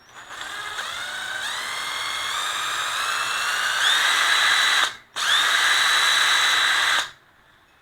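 Hitachi 14.4 V cordless drill-driver run with no load: the motor whine climbs in pitch as the trigger is squeezed over about four seconds. Just before the five-second mark it stops abruptly, then runs again at a steady top speed and cuts off sharply near the end.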